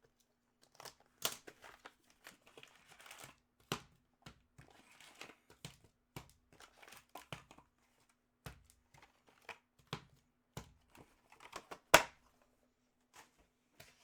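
Trading card pack wrappers crinkling and tearing open as cards are handled: an irregular scatter of crinkles and clicks, with one sharp snap about two seconds before the end.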